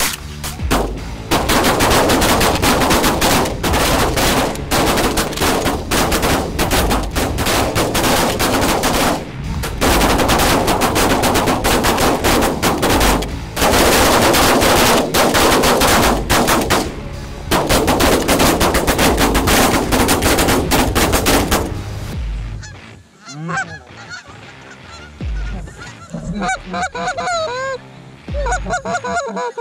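A big flock of Canada geese honking in a dense, loud din, with shotgun shots among it. After about 22 seconds it drops to a few geese honking one call at a time.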